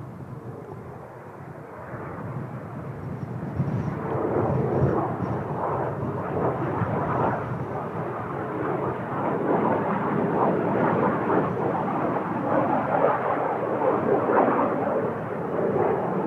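Jet engine noise from Kawasaki T-4 jet trainers, growing sharply louder about four seconds in and then staying loud and rough.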